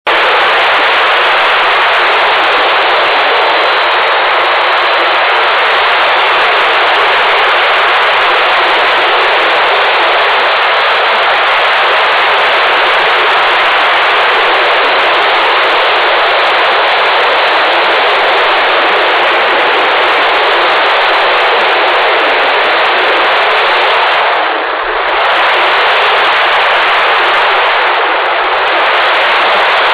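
Loud, steady rushing of air streaming past a camera mounted on a radio-controlled slope-soaring glider in flight, with two brief dips near the end.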